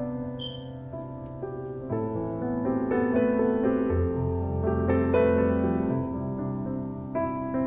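Background music: a solo piano cover playing chords under a melody.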